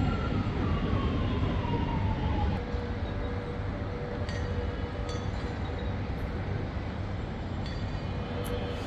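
Steady low rumble of vehicle traffic, with a tone sliding down in pitch over the first two seconds or so and a faint steady hum after it.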